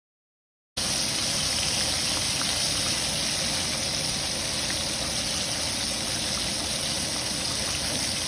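Floured chicken thighs sizzling in shallow hot oil in a cast-iron skillet: a steady, loud frying hiss that starts abruptly about a second in.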